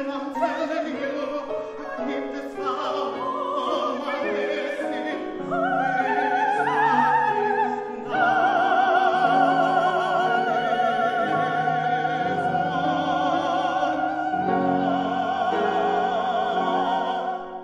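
Baritone and mezzo-soprano singing an operatic duet with grand piano accompaniment. About eight seconds in, both voices take up a long final note with strong vibrato over piano chords and hold it until just before the end.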